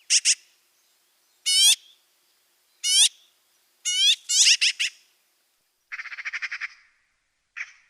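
Magpie calling: short calls, one or two at a time about every second and a half, bunching into a quick series about four seconds in. They are followed by a rapid rattling chatter about six seconds in and a single short note near the end.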